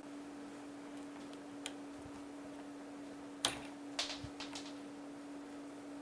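Electrician's scissors clicking and snipping on coax cable as the dielectric is stripped: a faint click, then three sharp snips in quick succession about halfway through, over a steady low hum.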